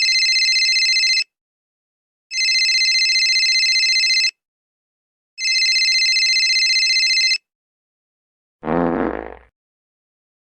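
Cell phone ringing sound effect: a steady electronic telephone ring in about two-second rings with short gaps, three in all. About a second after the last ring comes a short fart sound effect.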